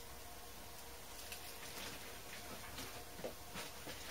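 Faint rustling and light handling of packaging, with a few soft scattered clicks and crinkles over a low steady hum.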